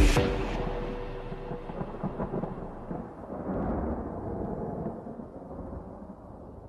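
The end of a slowed, reverb-heavy song: the beat stops, a last held note hangs for about a second and a half, then a noisy reverb wash swells around the middle and slowly fades out.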